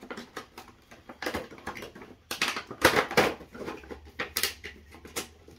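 Irregular clicks and crackles of plastic toy packaging being handled, loudest about two to three seconds in.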